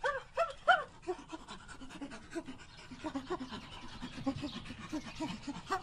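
Macaques calling. Three short calls rise and fall in pitch at the start, then comes a long run of short low calls, a few each second.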